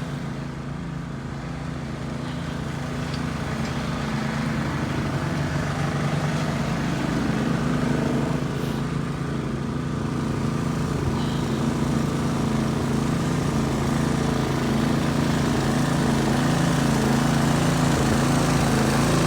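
A motor engine running steadily, getting gradually louder.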